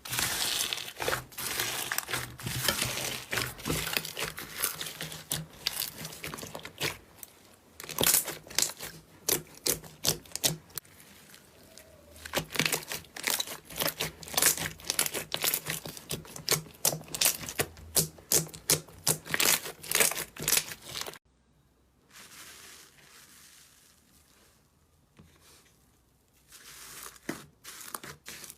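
Slime being squeezed and pressed by hand, giving rapid crackling and popping clicks, with a sudden drop to fainter crackling about three-quarters of the way through.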